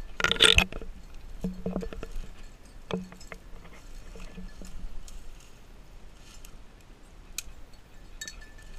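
Footsteps pushing through dry grass and brush, with stems and twigs rustling and scraping close by and scattered small snaps and clicks. A loud brushing rustle comes in the first second.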